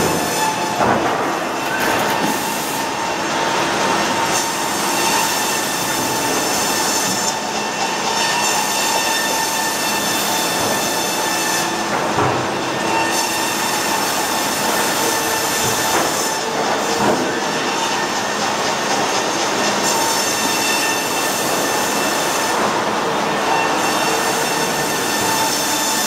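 Sawmill band saw headrig running and cutting a log on its carriage: a steady metallic whine with rattling carriage and feed machinery, and a few sharp knocks along the way.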